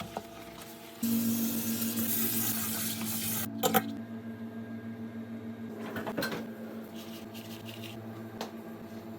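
Kitchen tap water running for a couple of seconds, then a few sharp clinks of dishes being handled, over a steady low hum.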